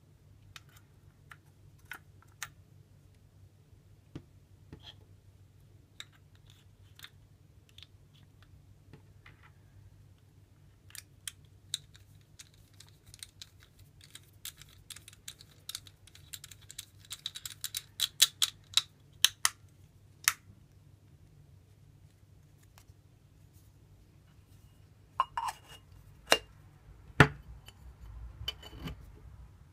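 Small clicks and taps of the stainless steel and plastic parts of a Porlex Mini hand coffee grinder being fitted back together, with a dense run of rapid clicks in the middle and a few louder knocks with a brief metallic ring near the end.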